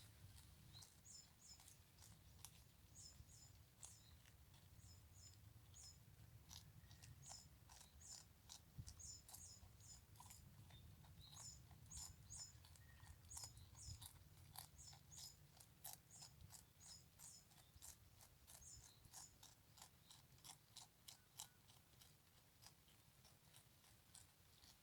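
A goat chewing and biting off cut grass: faint, irregular crunching and snapping clicks.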